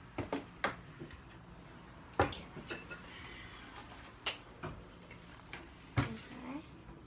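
Scattered clicks and knocks of a utensil against a mixing bowl as slime ingredients are stirred, about half a dozen hits with the loudest about two seconds in and about six seconds in.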